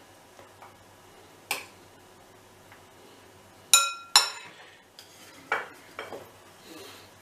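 A metal spoon clinking against a glass bowl of yogurt while yogurt is spooned out: two sharp ringing clinks about half a second apart midway through, with lighter taps of the spoon and utensils before and after.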